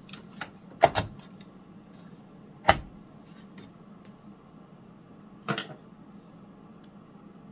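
Graphics card being fitted back into a desktop PC: sharp clicks and knocks of the card and its metal bracket against the case, a double click about a second in, a louder knock near three seconds and a short clatter around five and a half seconds, over a faint steady hum.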